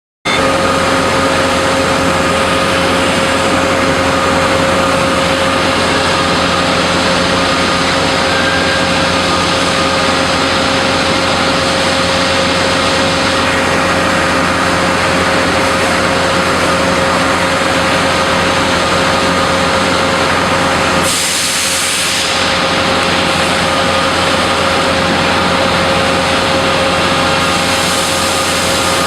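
Steady, loud factory machinery noise from heavy equipment used in making large springs: a constant low hum with several steady whines over a dense mechanical din. About twenty seconds in, the low rumble briefly drops while a burst of hiss rises.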